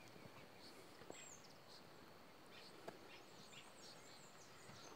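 Near silence: quiet riverside ambience with a few faint, high bird chirps and short falling whistles, and one faint click about three seconds in.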